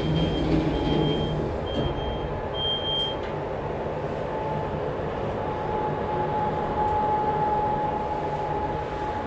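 Fujitec Exceldyne-II passenger lift car travelling upward: a steady low rumble of the car and its machinery. Four short high beeps sound in the first three seconds, the last one louder. A steady mid-pitched whine comes in about five seconds in.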